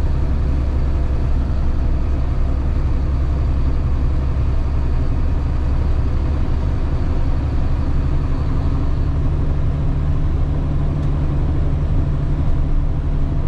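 Delivery truck's engine running steadily with road noise, a constant deep drone heard from inside the cab.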